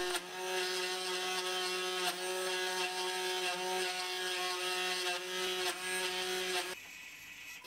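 Router spindle on a homemade CNC machine running at a steady pitch while its bit mills a hole in 4 mm acrylic plate. The whine cuts out briefly near the end.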